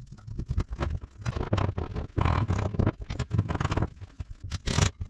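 Wooden door frame and panel pieces being handled during a glue-up on a plywood workbench: a string of irregular knocks and wood-on-wood scrapes as the frame is stood up and laid flat, with a sharper scrape near the end.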